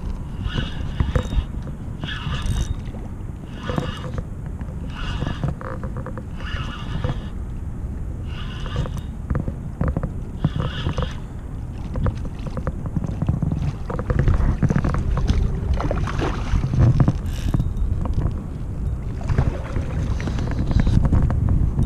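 Wind buffeting the microphone and water slapping against a kayak hull. Through the first half, short sounds come about once a second, and the low water and wind noise grows louder in the second half.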